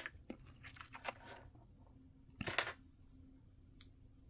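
Small plastic model kit parts being handled and pressed together: a few faint clicks, with a louder clatter of plastic about two and a half seconds in.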